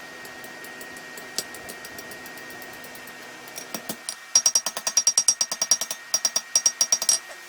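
Hand hammer striking hot steel on an anvil in quick runs of ringing blows, about five a second, shaping a scroll at the end of a knife bar. Before the hammering starts, about four seconds in, there is only a steady hum and a single tap.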